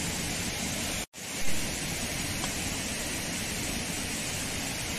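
Steady outdoor rushing noise. About a second in it cuts out completely for an instant, then returns with a brief louder bump.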